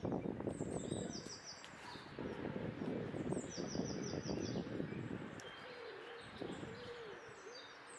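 A small bird calls in quick runs of four or five high notes, three times. Soft rustling from fruit being threaded onto wooden skewers fills the first half. A few low, soft coos come near the end.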